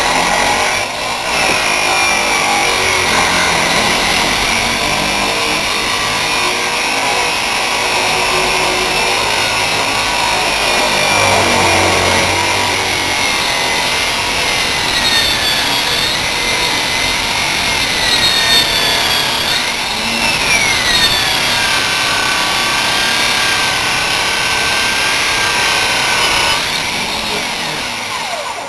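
Power saw cutting through the sheet-metal body of a 1995 Buick LeSabre, a loud continuous cutting noise with a high whine that wavers and glides in pitch as the blade loads, stopping at the very end.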